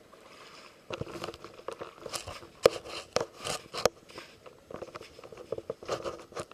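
Footsteps crunching on an icy, snow-crusted gravel creek bank, close to the microphone: irregular crunches and knocks that start about a second in, the loudest near the middle.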